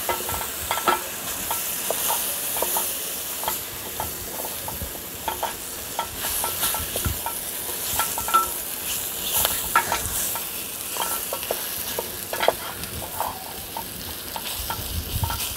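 Wooden spoon stirring and scraping lamb shoulder pieces, onion and carrot coated in flour in a stainless steel pot, with frequent short clicks and knocks of the spoon against the pot. Under it, a steady sizzle of the meat browning over the flame.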